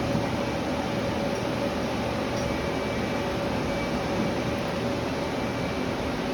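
Hyundai Wia L300LMC CNC lathe running under power: a steady mechanical hum with a constant mid-pitched tone and a faint high whine that comes and goes.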